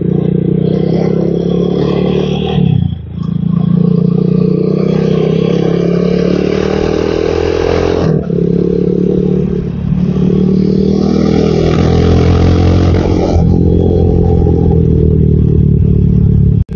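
Motorcycle engine running while riding on an unpaved clay road, with wind and road noise over it. The throttle eases off briefly about 3 seconds in and again about 8 seconds in, then the engine pulls steadily again.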